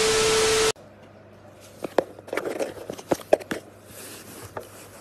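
A burst of TV-static hiss with a steady tone, a glitch transition effect, cuts off suddenly under a second in. After it come faint, irregular scratches and crinkles of cardboard from a box with a cat inside it.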